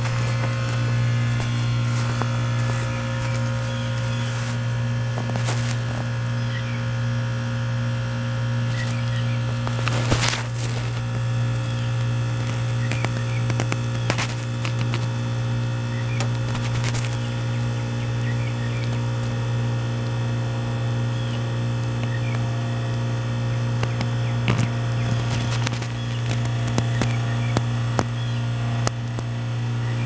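American Standard heat pump's compressor running with a steady low hum during a defrost cycle, with a broad rushing noise and occasional faint ticks over it.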